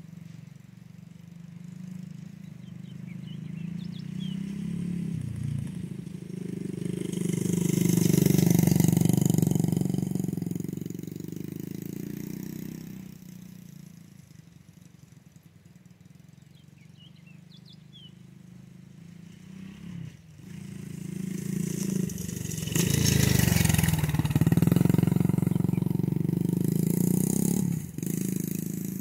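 Dirt bike engine passing by twice. It grows louder to a peak about eight to ten seconds in and fades away. It comes back from about twenty-two seconds in, stays loud for several seconds, then drops off sharply near the end.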